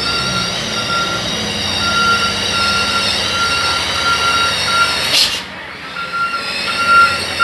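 Heavy truck running, with a warning beeper sounding about twice a second, then a pause and more beeps near the end. A short, loud burst of hiss comes about five seconds in.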